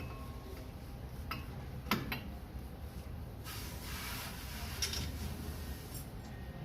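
A few sharp metal clinks of brake pads and caliper parts being handled and fitted at a car's front wheel, the loudest about two seconds in. A hiss follows, lasting about two and a half seconds from around the middle.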